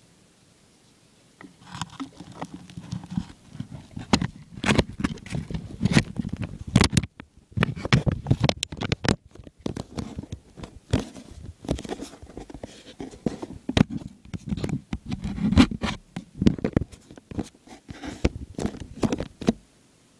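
Handling noise right at the microphone: irregular scraping, rustling and sharp clicks and knocks, starting about a second and a half in and stopping abruptly near the end.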